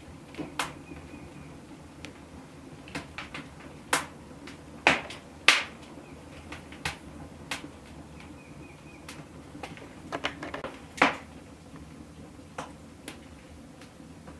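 Scattered light clicks and taps from hands laying pastry strips over a tart in a ceramic dish and handling a spoon on a pewter plate, the sharpest knocks about five seconds in and again about eleven seconds in.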